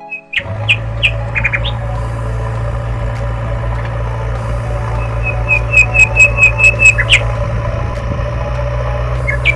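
Birds chirping, with a quick run of about ten short high chirps between five and seven seconds in, over a steady low machine hum that starts about half a second in.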